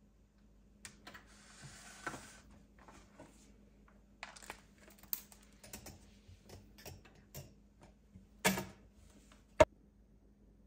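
A metal wire cooling rack and a woven rattan tray are handled on a kitchen counter while a bundt cake is flipped out onto the rack. Light clicks and rattles, a brief rustle about two seconds in, then a louder clatter about eight and a half seconds in and a sharp knock a second later.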